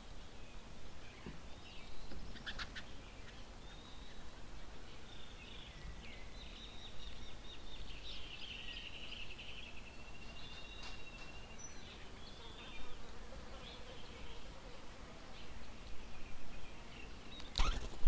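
Birds calling and chattering, with a rapid trilling, rattling call around the middle, over a faint low rumble. A sharp knock sounds near the end.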